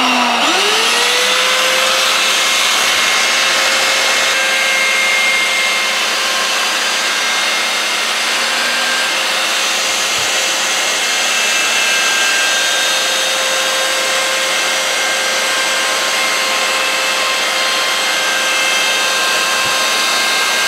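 Electric router with a roundover bit starting up, its whine rising as the motor spins up over the first second, then running steadily at full speed while plywood edges are fed against the bit.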